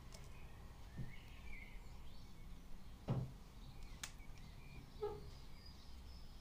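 Quiet room tone with faint, scattered bird chirps, two soft knocks about one and three seconds in and a sharp click about four seconds in, from hands sprinkling garnish over a plate on a wooden worktop.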